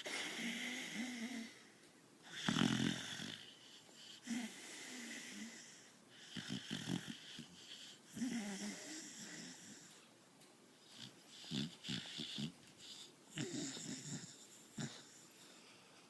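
Dog snoring in its sleep. Snores come with each breath every second or two, unevenly spaced, the loudest about two and a half seconds in.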